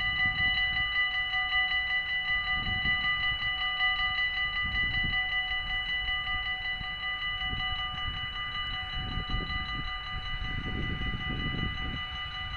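Dutch automatic half-barrier level crossing (AHOB) warning bells ringing in a rapid, steady, even ding, the signal that a train is approaching while the barriers lower. An uneven low rumble comes and goes underneath.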